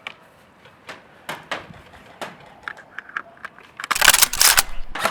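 Scattered sharp clicks and knocks of airsoft gun and gear handling, then, about four seconds in, a loud burst of rapid cracks lasting under a second, like an airsoft gun firing a short full-auto burst.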